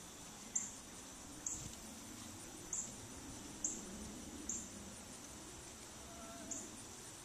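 An insect chirping: about six short, high chirps spaced roughly a second apart, with a longer gap near the end, over faint outdoor background noise.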